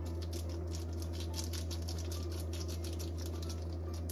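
Pots on an electric stove crackling and bubbling, a dense run of small irregular clicks, over a steady low electrical hum.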